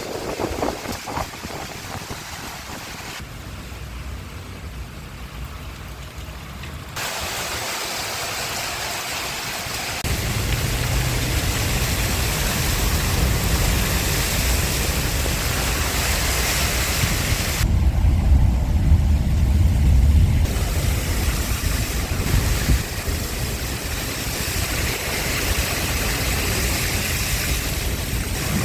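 Rain and wind with traffic noise: a steady hiss over a low rumble, changing abruptly several times.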